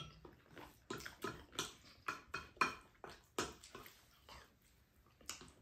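Two people eating curry rice with spoons from ceramic bowls: a run of short wet clicks and taps from chewing, lip smacks and spoons touching the bowls, thinning out near the end.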